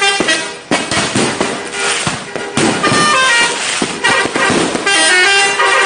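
Multi-tone 'telolet' bus air horn playing short melodic notes, including a quick falling run, with a stretch of crackling noise about a second in. A held multi-note blast starts near the end.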